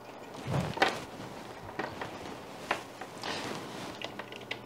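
Rubber power cord of a rotary tool being uncoiled and handled on a wooden desk: soft rustling with a few light knocks and clicks.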